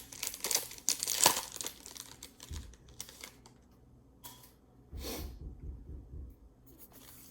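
Foil wrapper of a baseball card pack being torn open and crinkled, dense crackling for about two seconds, then a few scattered rustles as the cards come out.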